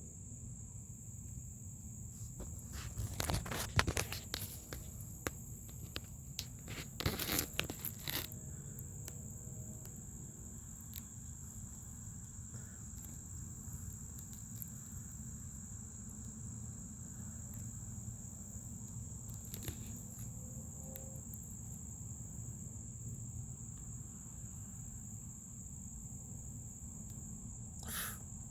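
New Fluidmaster 400A toilet fill valve making a steady high-pitched whine over a low rush, the noise a new valve should not make. A few brief knocks and rustles come a few seconds in and again after about seven seconds.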